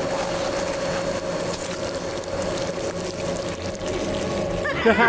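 Cartoon sound effect of a giant meat grinder running: a steady motor hum with wet squelching as ground meat pushes out through the grinder plate. Near the end a wavering cartoon voice cuts in.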